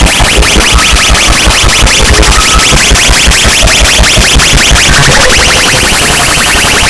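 Very loud DJ sound system playing electronic dance music: a fast, pounding bass beat under a high, rapidly repeating synth tone, which changes about five seconds in.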